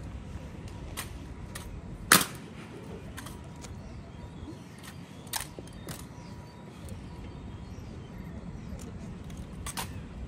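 Sharp, isolated clacks over a steady low background: honour guards' boot heels and rifles striking the floor during a changing-of-the-guard drill. There are about six irregular clacks, and the one about two seconds in is much louder than the others.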